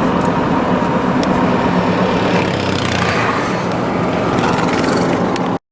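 A motor vehicle's engine and road noise: a steady low drone under a rushing hiss, cutting off abruptly near the end.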